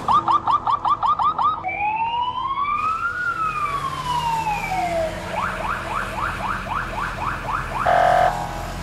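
Police car siren: a fast yelp of about five rising sweeps a second, then one slow wail rising and falling over about three seconds, then the fast yelp again, ending in a short steady horn-like blast near the end.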